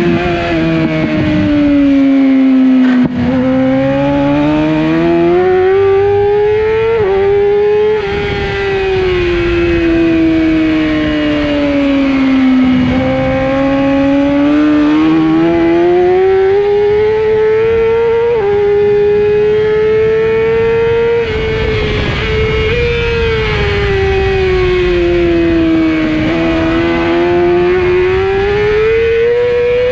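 600cc race motorcycle engine at high revs, heard from on board: its pitch falls as the bike slows into corners and climbs again under acceleration, with a few quick jumps in pitch at gear changes. Wind rushes over the bike underneath.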